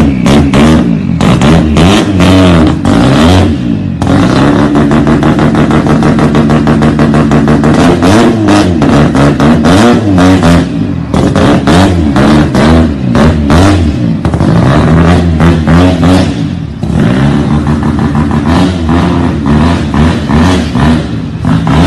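Rotary engine of a Mazda RX-7 revving hard as the car drifts in circles, its pitch rising and falling over and over, with a rapid crackle from the exhaust.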